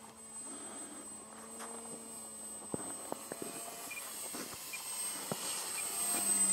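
Electric RC model airplane, an E-flite Timber, flying in low. The motor and propeller make a steady high whine that grows louder near the end as the plane comes closer. A few faint clicks are heard along with it.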